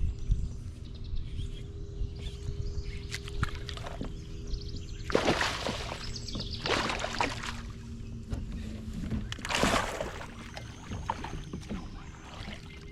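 Boat on the water: a steady low hum, with three short rushes of water noise about five, seven and ten seconds in.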